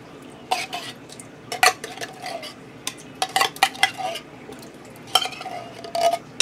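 A spoon scraping and clinking against the inside of a metal soup can as thick cream of mushroom soup is worked out into a stainless steel pot: scattered sharp clinks, some ringing briefly, with a quick cluster of them around the middle.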